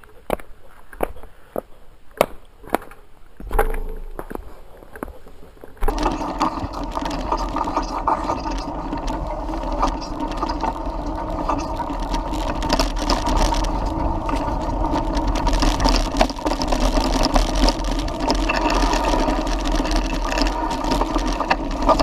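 A few scattered clicks and knocks, then, about six seconds in, a sudden switch to the continuous rattle and rumble of a mountain bike being ridden on a dirt track, picked up by an action camera riding along: tyres, drivetrain and frame shaking.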